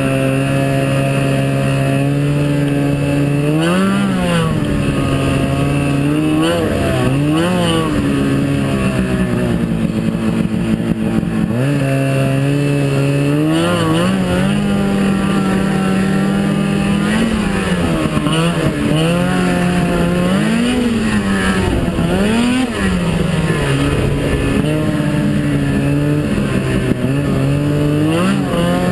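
Snowmobile engine running under way. Its pitch holds steady for stretches and rises and falls several times as the throttle is opened and eased off.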